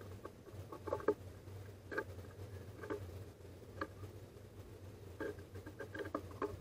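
Great tits pecking and hopping about a wooden bird-feeder tray: irregular light taps and knocks of beaks and feet on the wood, over a low steady hum.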